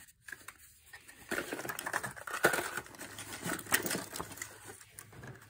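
Hands rummaging through small parts and paper or plastic packaging: an irregular run of rustles, crinkles and light clicks that starts about a second in and dies down near the end.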